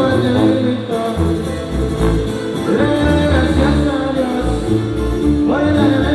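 Latin music with singing: a voice carrying a melody over guitar and a heavy bass line.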